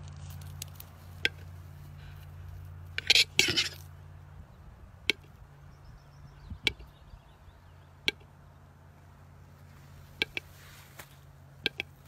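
Western capercaillie cock's display song: sharp, widely spaced clicks, some in quick pairs, with a brief louder rasping burst about three seconds in. A low steady hum runs underneath.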